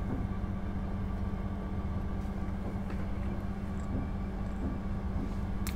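Steady low mechanical drone from nearby construction machinery, with a constant low hum that does not change.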